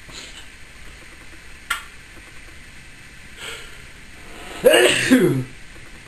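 Timneh African grey parrot making a human-like throat-clearing noise: a few soft raspy huffs and a sharp click, then a loud raspy throat-clear falling in pitch near the end.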